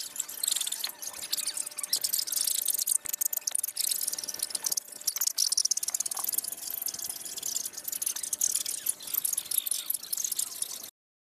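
A steady, high chorus of insects with many sharp clicks and rustles over it, cutting off suddenly near the end.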